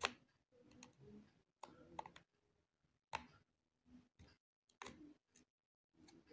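Faint, irregular plastic clicks and ticks as a plastic card is pried along the seam of a Samsung A20's plastic mid-frame to unclip it from the phone, the loudest click right at the start.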